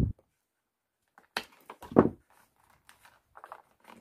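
Scissors cutting damp rolled-newspaper weaving tubes and the tubes being handled: two sharp sounds about a second and a half and two seconds in, the second louder, then faint clicks and rustling of paper tubes.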